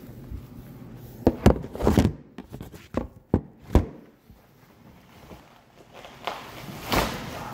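Several sharp knocks and thumps in quick succession, with a single knock near the end: handling noise close to the microphone.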